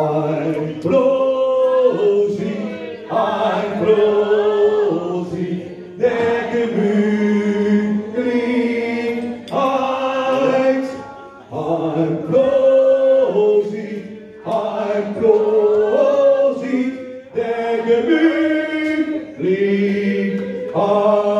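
Several voices singing a song together, in phrases of a few seconds each with long held notes.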